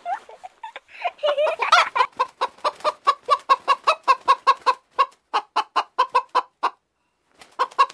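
A hen clucking. It gives a few squawks about a second in, then a long run of quick, short clucks at about four a second, which pauses briefly near the end and starts again.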